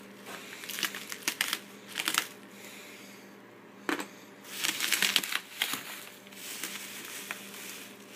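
Bubble wrap and torn cardboard crinkling and crunching as a heavily taped shipping box is pulled open. The crinkling comes in several irregular bursts, the loudest about five seconds in.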